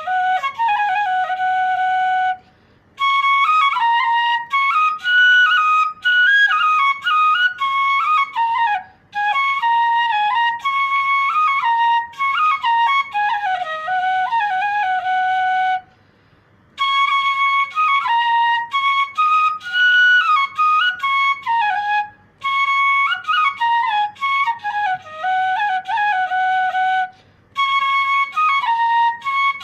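Bansuri (bamboo flute) playing a solo melody in phrases of held notes and sliding runs, with a short breath pause between phrases about every five to seven seconds.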